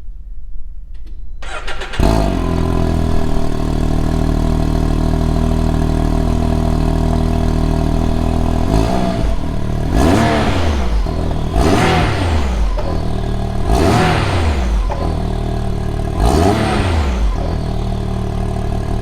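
Can-Am Maverick X3's turbocharged three-cylinder engine on its stock exhaust, cranked and starting about two seconds in, idling steadily, then revved four times in quick blips that rise and fall back to idle.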